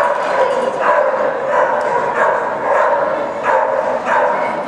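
A dog barking over and over, about one bark every three-quarters of a second, in a large indoor arena.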